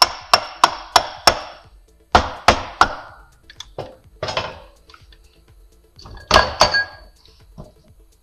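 Mallet blows on the aluminium case of an NP243C transfer case, in quick runs of about three a second, knocking the case free of the main shaft, front output shaft and drive chain. Near the end, a metallic clank with a brief ring as the chain and sprockets shift.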